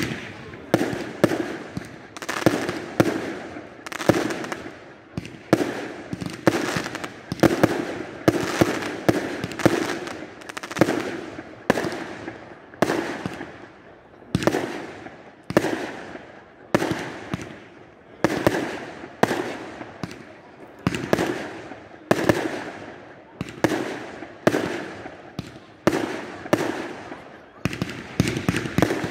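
Aerial fireworks display: shells bursting overhead in a steady run of sharp bangs, about one or two a second, each one echoing briefly.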